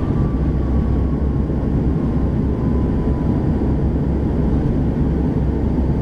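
Cabin noise of a Dash 8 Q400's Pratt & Whitney PW150A turboprops and propellers while the aircraft taxis after landing: a steady, loud low drone with a faint whine that slowly falls in pitch.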